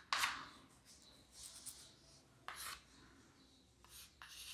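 Chalk scratching on a blackboard as words are written: a few short, faint strokes with quiet pauses between them.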